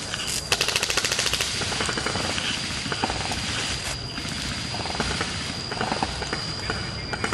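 Airsoft rifle firing a rapid full-auto burst of about a second, starting a moment in. A few scattered sharp clicks follow over a steady high-pitched tone.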